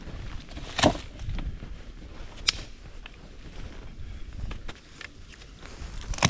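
Dead sticks snapping while firewood is gathered: a loud crack just under a second in, a sharper snap about two and a half seconds in and another near the end, over low shuffling and crunching of handling and steps in snow.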